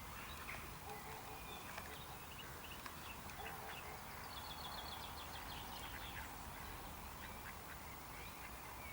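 Pond birds calling faintly over a steady background hiss: scattered short duck quacks and bird calls, with a rapid high trill from a small bird about four seconds in.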